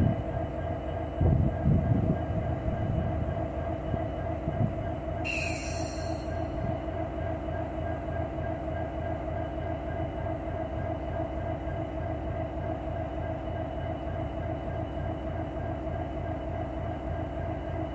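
EMD SD70M-2 diesel locomotive's two-stroke V16 engine idling at standstill, a steady low rumble with a constant hum. There are a few louder low surges in the first couple of seconds and a short hiss of air about five seconds in.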